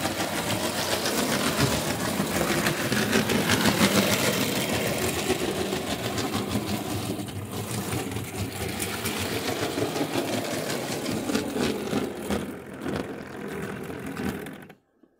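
Model railway train running on the track: the small electric motor whirring with a rapid clicking clatter of wheels on rails, cutting off abruptly near the end.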